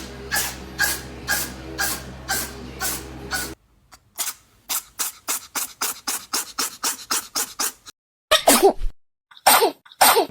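Cat sneezing over and over in a rapid string of short sneezes. For the first three and a half seconds they come about twice a second over a low steady hum that then stops. After that they come faster, about three a second. Near the end come three louder, bigger sneezes, each falling in pitch.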